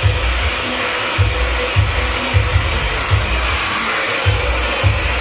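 Handheld hair dryer blowing hot air steadily, over music with a low beat about every 0.6 seconds.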